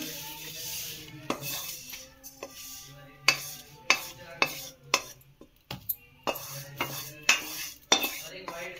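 A wooden spatula scraping roasted sesame seeds out of a steel kadhai onto a steel plate. The seeds rustle and slide, and there are repeated sharp knocks of wood on steel.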